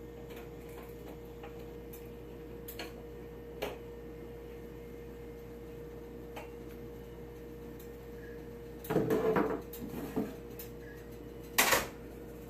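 Scattered light clicks and knocks of hard objects handled over a steady hum, with a louder clatter about nine seconds in and a sharp knock near the end.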